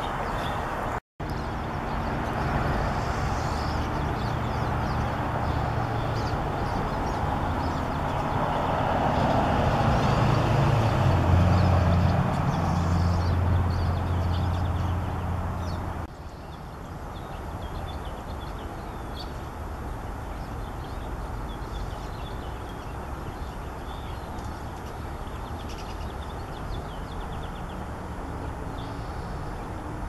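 Outdoor motor-traffic noise: an engine's low hum swells to its loudest about a third of the way in, then cuts off suddenly to a quieter steady background hum with faint, short high chirps of small birds.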